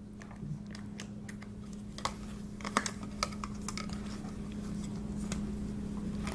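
Scattered light clicks and taps of plastic being handled as a USB cable is plugged into a small power bank and a mini desk fan is moved about, over a faint steady low hum. The fan is not yet running.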